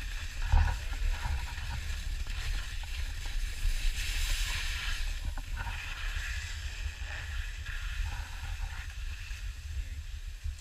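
Skis hissing over snow in swelling and fading surges, over a steady low rumble.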